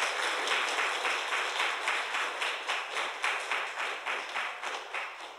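Audience applauding: dense clapping that thins out into fewer, separate claps and fades over the last couple of seconds.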